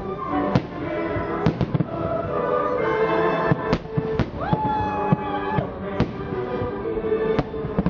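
Aerial firework shells bursting with sharp bangs, about half a dozen at irregular intervals, over music playing with sustained notes. A short rising whistle-like tone about four and a half seconds in holds steady for about a second.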